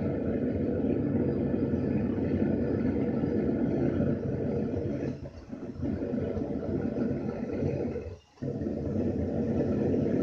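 Single-burner gas forge burner running with a steady low rushing noise during its first firing, curing the Satanite refractory lining. The sound dips briefly a little after halfway and cuts out almost completely for a moment at about eight seconds.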